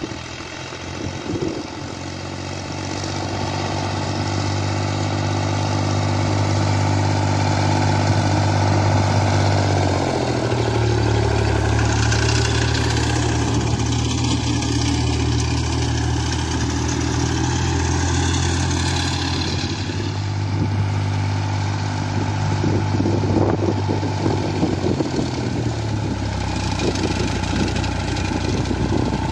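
Fiatagri 60-66 tractor's three-cylinder 2.9-litre Iveco diesel running steadily under mowing load, growing louder over the first few seconds as the tractor comes closer. The engine note steps down in pitch about ten seconds in. The Gaspardo sickle bar mower's cutter bar chatters through the standing crop, most clearly in the middle of the clip.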